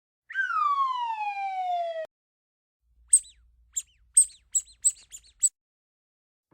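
Edited-in cartoon-style sound effects: a whistle that slides steadily downward for about two seconds, then a quick run of about eight short, high chirps.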